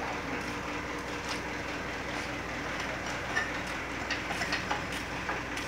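Mitsubishi Canter dump truck's diesel engine idling steadily, with a few light clicks and knocks in the second half.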